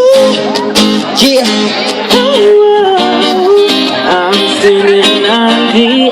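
Male voices singing a pop song live over an acoustic guitar, with long held notes.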